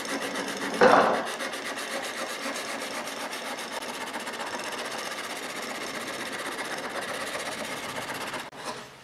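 A soft-steel plane iron held in a wooden sharpening jig being rubbed back and forth on a sharpening stone, grinding a 30-degree secondary bevel: a steady scraping. There is a sharper knock about a second in, and the scraping stops shortly before the end.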